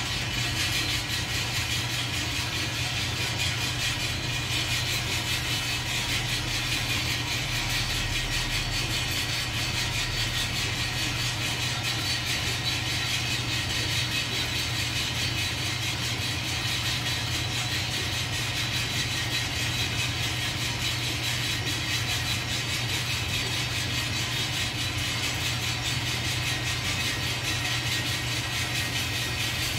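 Coffee beans tumbling in a hand-cranked stainless-steel drum roaster turned steadily over a gas flame: a constant fine rattle with a steady low hum beneath.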